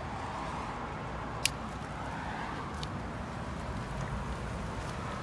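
Steady outdoor traffic noise, a low even rumble of passing cars, with one sharp click about a second and a half in.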